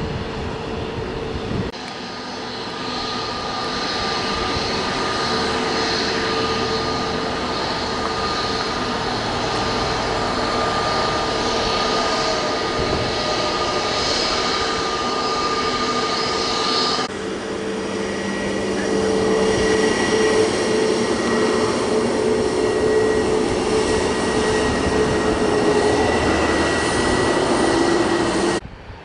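Airbus A321neo's twin turbofan engines running at taxi power: a steady jet whine over a broad engine rush. The tone shifts abruptly about two seconds in and again about seventeen seconds in.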